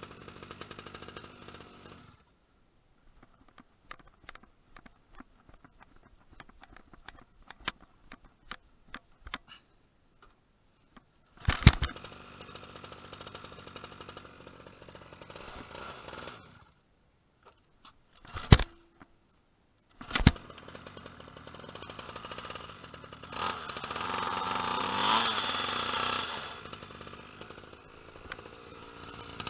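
Pocket bike's small two-stroke engine running, then cutting out about two seconds in. Light clicks and knocks follow, then a few sharp bangs, and after the last one the engine runs again, getting louder for a few seconds later on.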